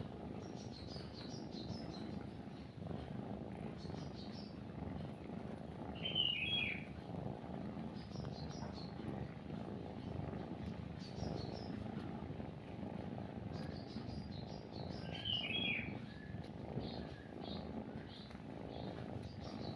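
Kitten purring steadily while nursing, a sign it is content, with small birds chirping in quick high runs and a louder bird call twice.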